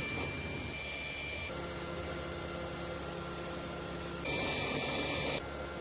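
Steady electronic whine over a hiss, its pitch changing abruptly about a second and a half in, with a louder, higher stretch for about a second near the end.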